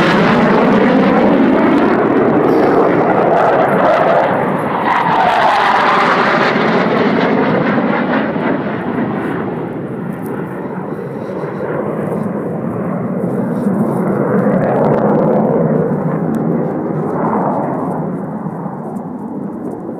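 Jet roar of a low-flying RAF Panavia Tornado's twin RB199 turbofans as it passes, with a swirling, phasing sweep to the sound. The hiss dies away and the rumble fades as the jet draws off, swelling briefly again about fifteen seconds in before fading further.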